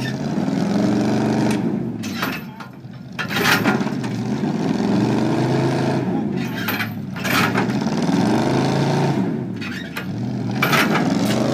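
Heavy vehicle engine revving up and falling back about four times, every two to three seconds, as it pulls under load, with short bursts of hissing noise between the revs.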